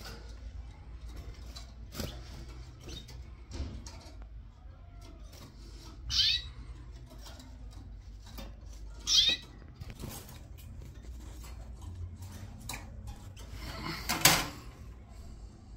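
Canary giving two short, high chirps about three seconds apart, with small clicks and rustles from the nest between them. A louder rustling burst comes near the end.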